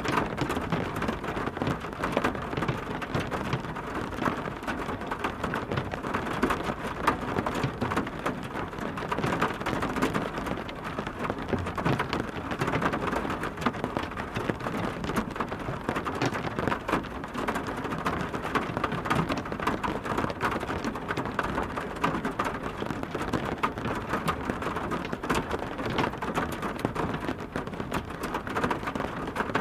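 Heavy rain falling steadily, a dense patter of drops striking a surface with many small individual splashes.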